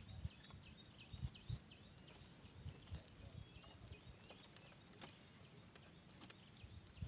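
Near silence with faint outdoor ambience: a few soft low knocks and some faint, short high chirps in the first couple of seconds.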